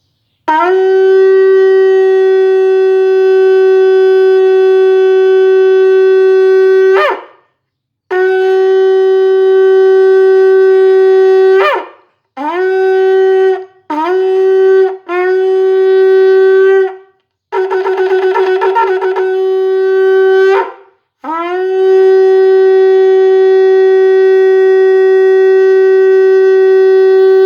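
A large, thick ram's-horn shofar is blown in seven blasts on one deep, steady note, each starting with a quick upward slide into the pitch. The pattern runs: two long blasts, three short ones, one wavering, trembling blast, and a final long one of about six seconds.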